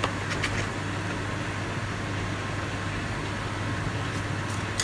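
Steady low background hum, like a fan or ventilation running, with a few faint clicks near the start and again near the end.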